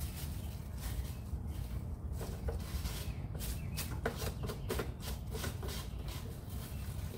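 Thin plastic sheet crinkling and rustling as it is pressed over a lawn mower's gas filler and the gas cap is screwed down on top: a run of irregular short scrapes and clicks.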